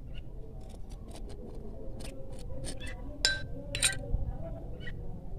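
Scattered light clicks and soft scraping of a metal spoon spreading flour paste onto a slice of bread held over a plate.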